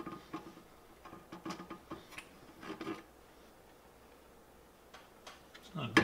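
Light scattered clicks and taps of a styrene model kit and a small metal corner clamp being handled on a glass plate, mostly in the first three seconds, with one more click near the end.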